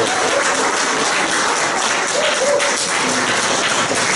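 A room of people applauding at the end of a song, with a few voices calling out over the clapping.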